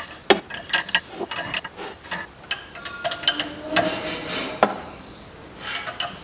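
Ratchet wrench clicking in short strokes as it turns the forcing screw of a puller drawing the crankshaft balancer off the engine, with a longer scrape partway through.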